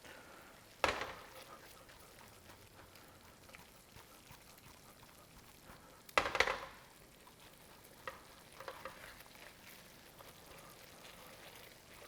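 Risotto sizzling and simmering in a hot pan as it is stirred, with two louder sizzling scrapes, about a second in and around six seconds in, and a few softer ones later.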